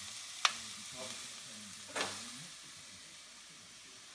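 Onions, peppers and chorizo sizzling over high heat in a heavy cast-iron casserole, a steady hiss that grows a little quieter near the end. Two sharp knocks land about a second and a half apart.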